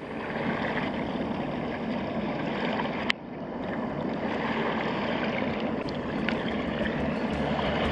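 Steady outdoor noise of wind and water at a rocky tide pool, with a sharp click about three seconds in and a few light ticks near the end.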